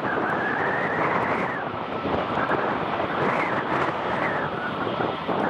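Twin rear-mounted turbofan engines of an Embraer ERJ-145-family regional jet running at high power for takeoff: a steady jet noise with a whine that rises, falls and rises again several times.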